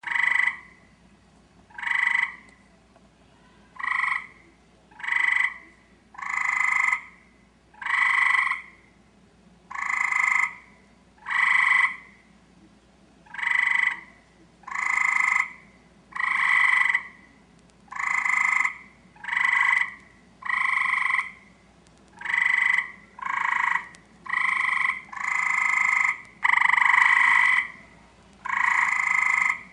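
Male Eastern gray tree frog giving its mating call: short trills repeated about every one and a half seconds, growing longer toward the end.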